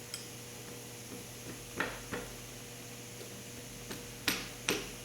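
A few light, sharp clicks and knocks of tools and metal parts being handled at an engine's rocker shaft, two about two seconds in and a louder pair near the end, over a faint steady hum.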